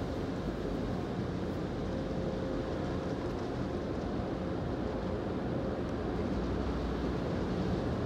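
Tunnel car wash heard from inside the car: a steady rumble of the wash machinery, spinning cloth brushes and water spray, growing a little louder near the end as the brushes reach the car.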